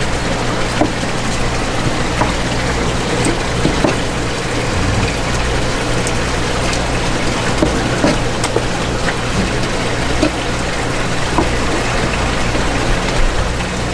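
Steady rush of running water over a low pump hum, with light knife taps and clicks on a plastic cutting board as a live squid is cleaned.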